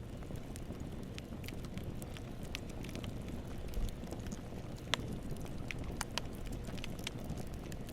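Wood bonfire crackling: irregular sharp pops and snaps of burning wood over a steady low rumble of the flames, with one louder pop about five seconds in.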